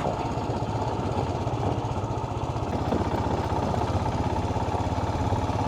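Royal Enfield Himalayan motorcycle's single-cylinder engine running steadily with an even, rapid pulse as the bike sets off on a dirt road.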